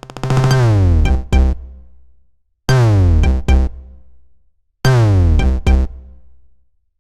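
An Android stock ringtone: an electronic synthesizer phrase that sweeps downward in pitch over a deep bass, closing with two sharp drum-machine hits. The phrase plays three times with short gaps between.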